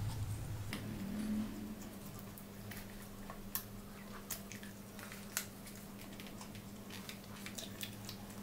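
Soft close-up chewing and mouth sounds as spoonfuls of biryani rice are eaten from a wooden spoon, with scattered faint clicks and wet smacks. A low steady hum sits underneath.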